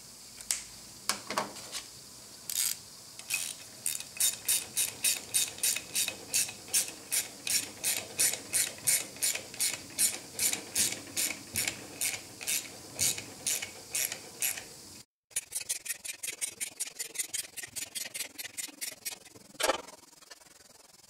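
Hand ratchet clicking in a steady rhythm, about two to three clicks a second, as ring gear bolts are run down into a differential case. After a short break about 15 s in, the clicking comes faster, with a single louder knock near the end.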